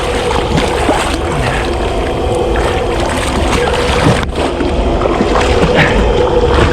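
Boat engine running steadily, with wind buffeting the microphone and water noise around the hull.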